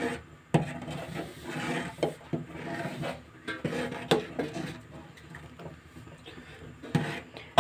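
A steel spoon stirring curdled milk in an aluminium pot, scraping and knocking against the pot's sides and base in irregular strokes as the paneer curds are worked apart from the whey.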